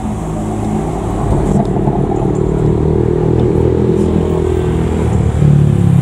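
BMW M4's twin-turbo straight-six running as the car drives past and pulls away, a steady engine note that grows a little louder near the end.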